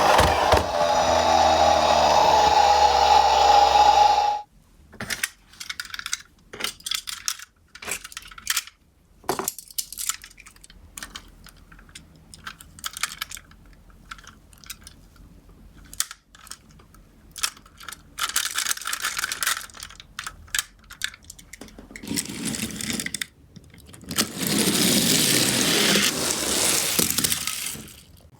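Die-cast toy cars rolling and clattering along a slope course in many small clicks and rattles, with a siren sounding for the first four seconds and a louder, continuous rolling rush near the end.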